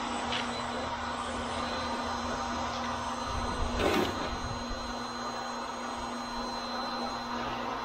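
Electric cement mixer running with a steady motor hum. A single thump about four seconds in.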